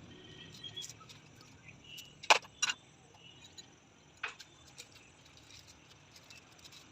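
Metal parts and tools clinking as a motorcycle rear shock absorber is worked on by hand: two sharp clinks close together about two and a half seconds in, another about four seconds in, and light ticks between.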